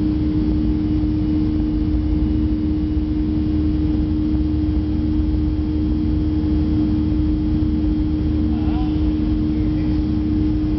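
The CFM56-3 turbofan engines of a Boeing 737-300, heard from inside the cabin during the climb after take-off: a steady drone with a strong, constant low hum.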